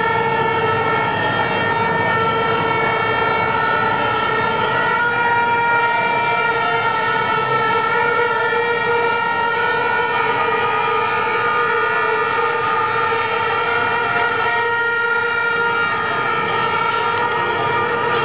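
Steady noise of a large marching crowd of protesters, with a held droning tone and its overtones sounding over it throughout.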